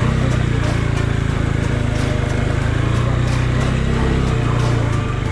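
Motorcycle engine running steadily at low revs, heard close up from the rider's own bike, with faint knocks and rattles from riding over a rough dirt trail.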